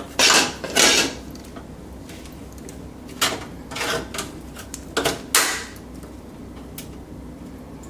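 A thin sheet-metal part of a PC case being cut and worked by hand: a series of short, irregular metallic scraping strokes, the loudest two in the first second and others about three and five seconds in.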